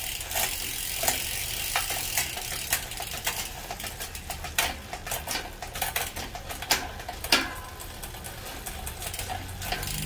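Road bike drivetrain turned by hand on a repair stand: the chain runs over the new Ultegra chainring and the cassette with irregular ratcheting clicks, one sharper click about seven seconds in. The derailleur has just been adjusted and the shifting is being tested.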